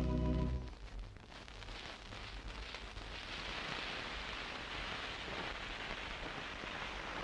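The final held chord of a choir and orchestra dies away in the first second, leaving the crackle and hiss of a vinyl LP's surface noise as the record side plays out after its last track.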